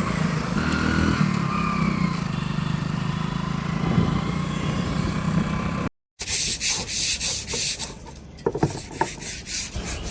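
A heavy machine's diesel engine running steadily. It cuts off abruptly about six seconds in, followed by a quick, rhythmic rasping scrape of several strokes a second.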